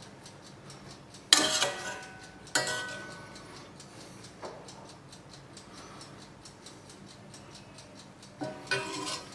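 A serving utensil clinking against cookware as cooked onions are spooned onto the dish: two sharp clinks that ring on briefly, about a second apart, a light tick, then another ringing clink near the end.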